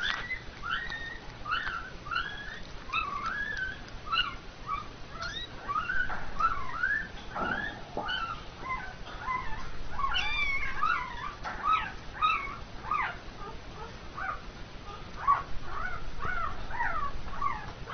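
Young pets crying in a crate: many short, high squeaks and mews, several a second, often overlapping.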